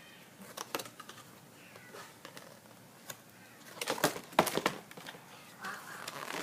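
Scattered light taps and clicks from a baby handling and mouthing a board book, with a cluster of louder ones about four seconds in.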